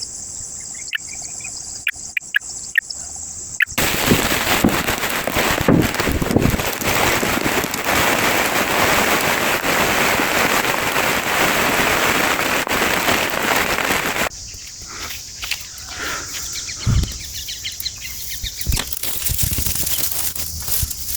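Insects buzzing steadily with short bird chirps and clicks. About four seconds in, a loud, even rushing noise takes over for about ten seconds and then cuts off. The insect buzz returns with scattered clicks and a few low thumps.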